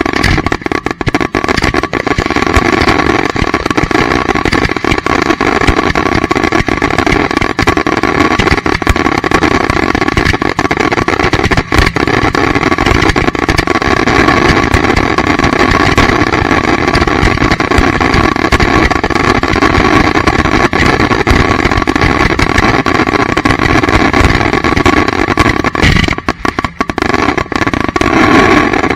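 Close-range daytime fireworks barrage fired from a rack of ground mortar tubes: dense, continuous bangs and crackling merging into one loud, unbroken roar.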